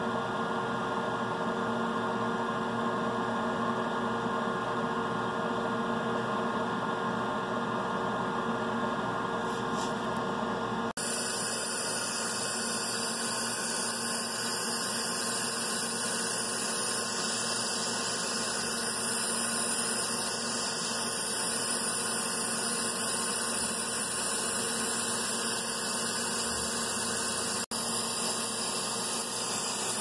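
Biotage Initiator microwave synthesizer running: a steady hum with several steady tones while the magnetron heats. About 11 seconds in this gives way to a louder, even hiss once heating has stopped at 0 W, the vial being cooled with compressed air.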